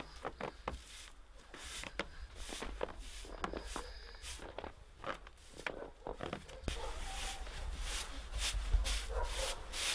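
Twig broom sweeping snow off wooden and metal steps in a series of short brushing strokes, coming faster and louder in the second half.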